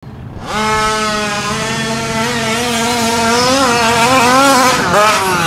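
A 30 Degree North short course RC truck's Taylor 46GT two-stroke gas engine running at high revs as the truck drives. It starts about half a second in, holds a fairly steady pitch, then rises and falls with the throttle and dips briefly near the end.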